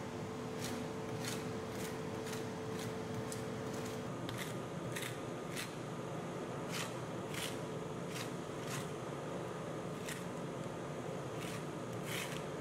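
Metal spatula scraping and spreading an ice cream base across a frozen steel cold plate, in short strokes about every half second or so, over a steady hum.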